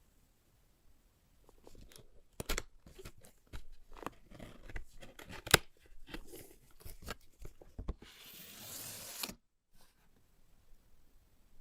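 Keyboard packaging being opened by hand: irregular rustling, crinkling and small knocks, then a steady tearing or scraping sound lasting about a second and a half near the end.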